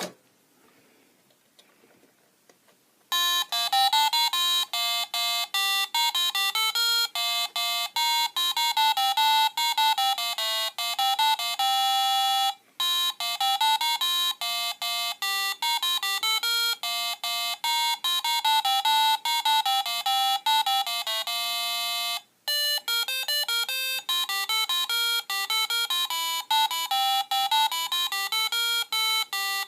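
Home-built electronic melody alarm clock playing its alarm tune: a two-part electronic melody, a higher line over a lower one. It starts about three seconds in and repeats in phrases of about ten seconds, with a brief break between them.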